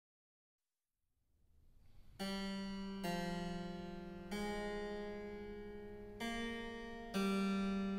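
Two-manual harpsichord playing slow, spaced chords. Room hiss fades in over the first two seconds, then five plucked chords are struck a second or two apart, each left to ring and die away.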